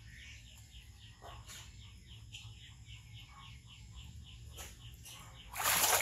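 A bird chirps over and over, about three short falling chirps a second. Near the end comes a loud splash of water as a baby monkey surges to the edge of a plastic tub and water spills over the rim.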